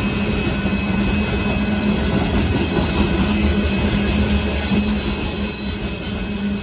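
Union Pacific freight train of hopper cars rolling past with a steady heavy rumble of steel wheels on rail. From about two and a half seconds in, high-pitched wheel squeal comes and goes over it.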